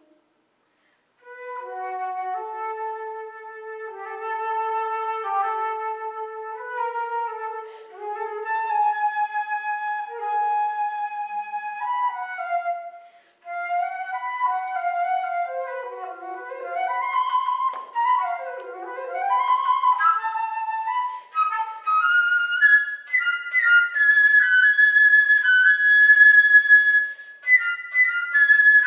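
Solo flute playing unaccompanied: held notes in its low register after a brief rest, a second short pause, then quick up-and-down runs and a climb to higher, louder notes near the end.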